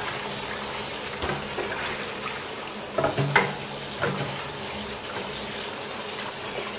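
Kitchen tap running into a metal colander in a stainless steel sink while hands rinse soft-shell crabs in it. A few light knocks and clatters come through, the loudest cluster about three seconds in.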